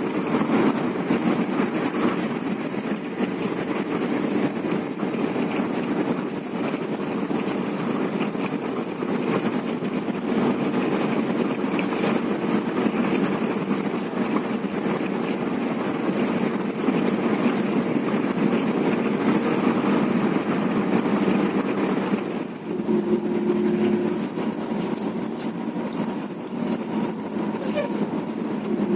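Intercity coach bus engine and road noise while driving, a steady running note that shifts to a different pitch about three-quarters of the way through.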